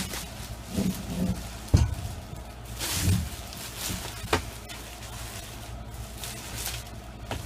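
Several sharp knocks and clatters as a boxed bed frame and its packaging are handled, the loudest about two seconds in, with a few short low hums in between.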